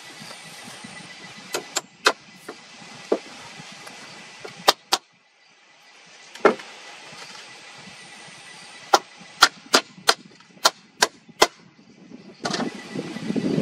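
Sharp knocks of a tool striking wood, about fifteen single strikes at irregular intervals, several in quick runs. Near the end a louder, rough, noisy sound begins.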